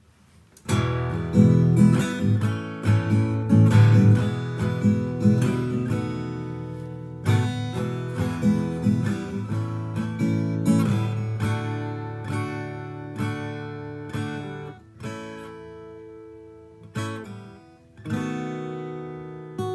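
A freshly tuned guitar strummed and picked in chords. It plays densely for the first ten seconds or so, then more sparsely, with chords left to ring. The player judges it pretty much in tune.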